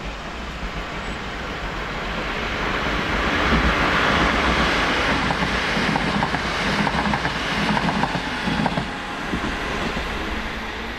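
A train passing through the station at speed: a rush of wheel and air noise builds to its peak near the middle and then fades. A run of quick clicks comes from the wheels crossing rail joints as the coaches go by.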